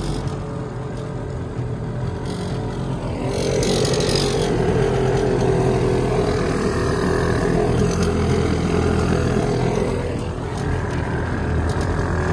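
Hangkai 3.6 hp outboard motor running steadily, pushing the small aluminium jon boat along at cruising throttle.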